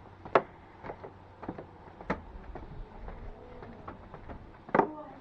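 Footsteps knocking on wooden planks: irregular sharp knocks about every half second, with a short creak near the end.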